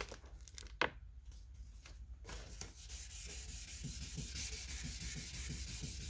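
Wet sandpaper (1000 grit) rubbing back and forth over a plastic car headlight lens in quick, even strokes, starting about two seconds in. A single sharp click comes just before it.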